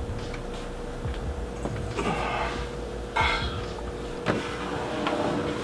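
Knocks, clicks and rustling from handling a power cord as it is plugged into the back of a 3D printer. Two short rustles come about two and three seconds in, over a steady faint hum.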